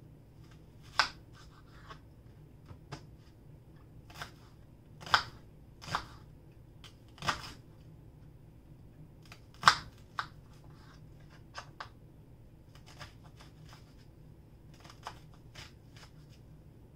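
Kitchen knife cutting a red onion on a cutting board: irregular, widely spaced knocks of the blade going through the onion and striking the board, the loudest about a second in and between five and ten seconds in, with fainter taps later.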